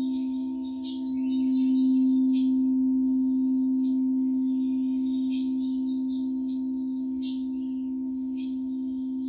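A singing bowl ringing with a steady sustained tone that swells about two seconds in and then slowly fades. Over it, birds chirp in quick repeated trills.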